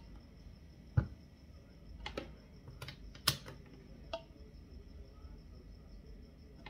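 A handful of short, irregular clicks and taps, the loudest about a second in and again past three seconds: multimeter probe tips knocking against the metal terminals of an electric frying pan's heating element.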